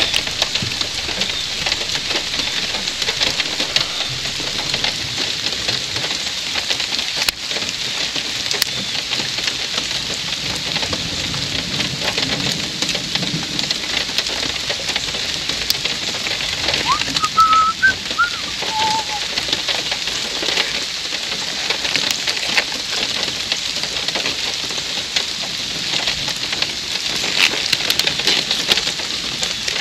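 Steady rain falling, with scattered drops ticking close by. A brief bird call rises and falls about two thirds of the way in.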